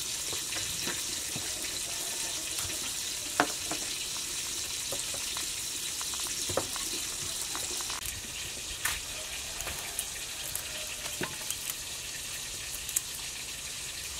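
Fish frying in hot oil: a steady high sizzle with scattered small pops and crackles.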